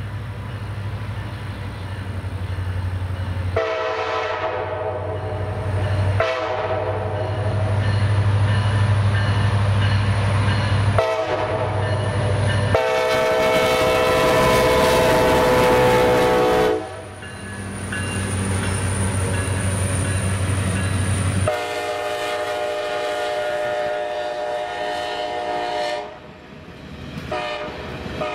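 A CSX diesel locomotive sounds its horn over the steady low rumble of its engine: two long blasts, a short one, then a louder long one, the standard pattern for a road crossing. The engine rumble drops away about two-thirds of the way through. The horn then gives another long blast, and a further one starts near the end.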